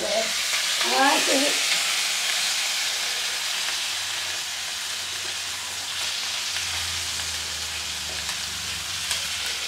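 Masala-coated fish frying in coconut oil in a hot pan: a steady sizzle.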